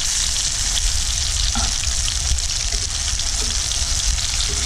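Crumbed flathead pieces shallow-frying in butter and grapeseed oil in a pan: a steady sizzle with small crackling pops.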